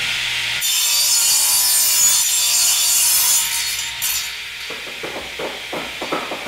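Handsaw cutting through wood: a loud, bright rasp for about three seconds that eases off, then quicker separate strokes at about four a second.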